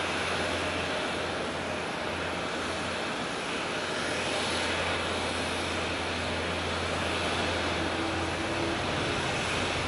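Airliner jet engines giving a steady, even rush.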